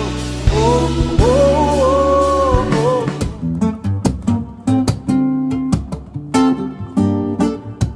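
Live band music with a held, gliding melody line over a steady bass, which breaks off about three seconds in. Solo acoustic guitar follows, chords struck sharply one after another with short gaps between them.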